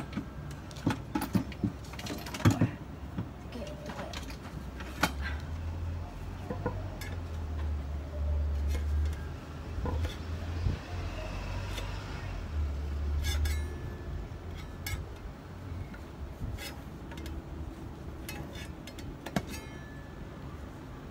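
Metal tool prying at a stiff paint can lid: sharp metallic clicks and clinks, densest in the first few seconds and scattered after, with a low rumble of handling in the middle.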